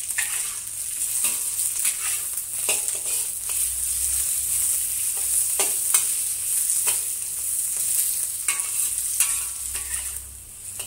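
Ginger, garlic and scallion sizzling in hot oil in a wok, with a metal wok spatula scraping and clinking against the wok every second or so as the aromatics are stir-fried until fragrant.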